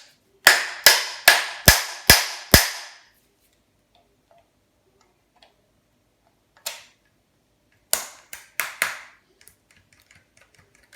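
Sharp metallic knocks on a cast-aluminium automatic door closer as a stuck inner part is worked at. First comes a run of six strikes about every half second, each with a short ring. A single knock follows, then a quicker cluster of about five near the end.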